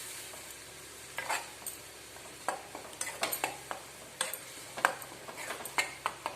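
Ground curry-leaf paste being stirred in a frying pan, a utensil scraping and tapping the pan in irregular strokes over a faint sizzle.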